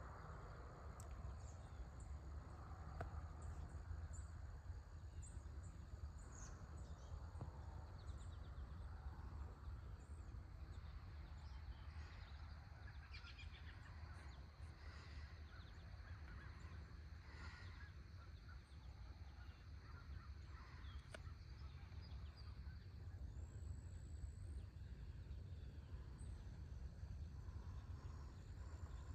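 Faint dawn countryside ambience: scattered distant bird calls, busiest in the middle, over a steady high chirring of insects and a low rumble.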